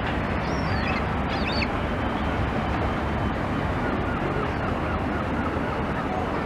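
Steady rush of sea surf and wind on the microphone, with a few short high bird calls between about half a second and two seconds in and fainter calls around four to five seconds in.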